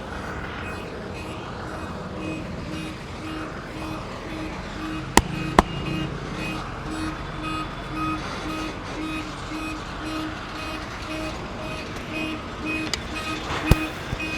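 Music with a steady pulse of short repeated notes over street traffic noise, broken by two sharp snaps close together about five seconds in and another near the end.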